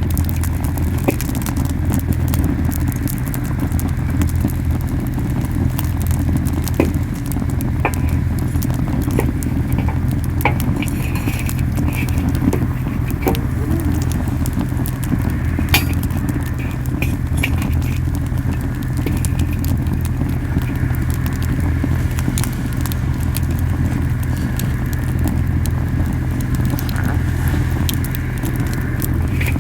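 Camellia-wood campfire burning very hot, its flames puffing with a steady low roar, with frequent sharp crackles and pops from the burning wood. The strong roar comes from the fire burning too fiercely.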